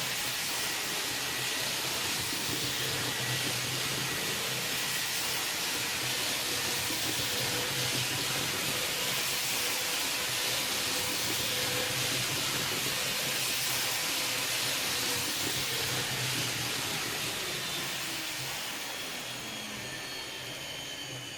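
N-scale six-axle model locomotive pulling a train at high speed around tight Kato Unitrack curves: a steady whirring hiss of the motor, and of wheels on the rails, over a faint hum. It dies away near the end, with falling tones.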